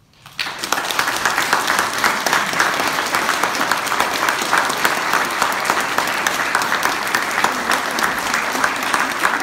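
Audience applauding: dense clapping breaks out about half a second in and continues steadily.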